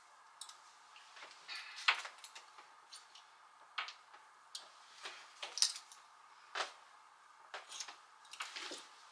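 Clothes hangers clicking and scraping against a closet rail as sweaters are pulled down one at a time, in irregular, separate clinks.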